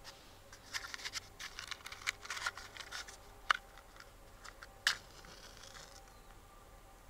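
Rustling and crackling of small things being handled, then two sharp clicks, the louder about three and a half seconds in and the other about five seconds in.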